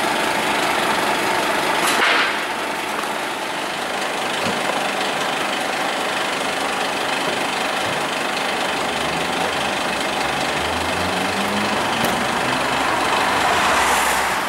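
Scania P280 fire engine's diesel engine running over a steady broad hiss of street noise, its note climbing slowly in the second half. Broad whooshing swells come about two seconds in and near the end.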